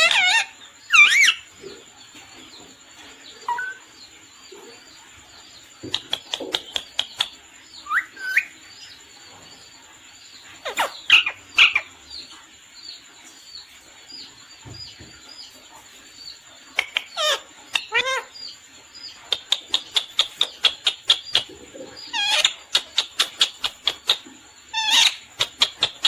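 Pet parrot calling: sweeping whistled squawks that rise and fall every few seconds, between runs of rapid short chirps, the longest run about two-thirds of the way through.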